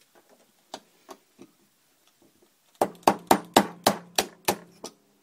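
A punch being struck about seven times in quick succession, roughly three sharp taps a second with a faint ring under them, to drive a tight pin out of a 1911 pistol frame. A few light clicks of tools being set in place come first.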